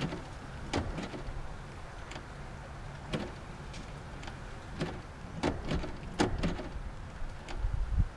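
Scattered sharp clicks and knocks from a 2001 Volkswagen Jetta's door being worked by hand, key and lock, as the faulty lock fails to work. A low steady hum runs underneath.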